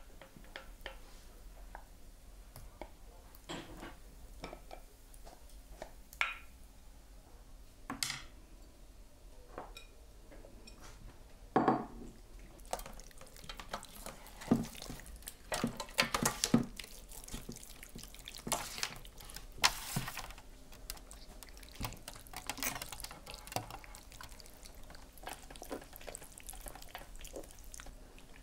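A spoon clinking and scraping against a glass bowl as thick creamy sauce is dropped onto a raw rabbit, then wet squelching and slapping as bare hands rub the sauce into the meat in a steel tray. The clinks are sparse at first; the squelches come thick and fast from about halfway through.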